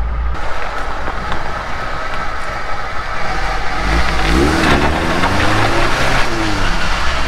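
Suzuki Samurai's swapped-in 1.6-litre Weber-carburetted four-cylinder engine running as the vehicle drives, with tyre noise over gravel. The engine note rises and falls a few times around the middle.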